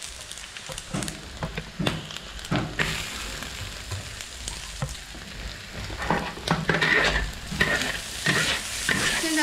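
Chopped dried seafood and aromatics sizzling in hot oil in a large iron wok. From about six seconds in, a metal spatula scrapes and stirs across the pan in repeated strokes.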